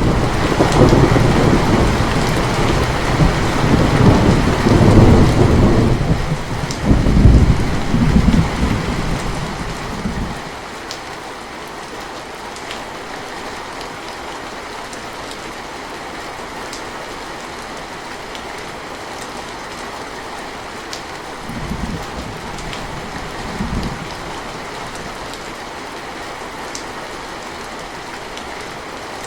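Steady rain falling, with a long rolling thunderclap through the first ten seconds that swells several times before fading. Later, two brief, weaker rumbles of thunder sound over the steady rain.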